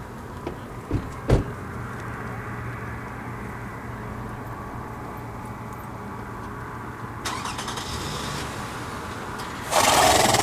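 A steady low motor hum, like an engine running, with two sharp thumps about a second in and a loud rush of noise near the end.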